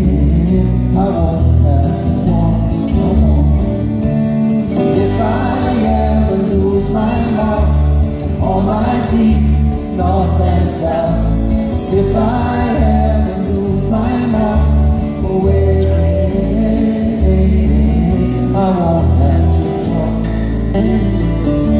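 Man singing with a strummed acoustic guitar, amplified live through a concert hall's sound system and heard from the audience.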